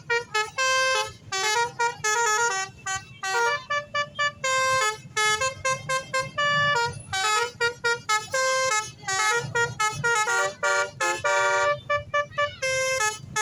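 Basuri telolet multi-tone bus horn playing a tune: a fast, continuous string of short horn notes jumping between pitches, some held a little longer.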